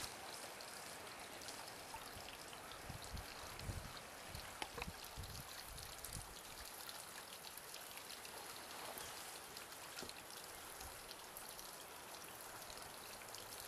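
Light rain pattering faintly, with many small drop ticks over a steady hiss. A few soft low thumps come around the middle.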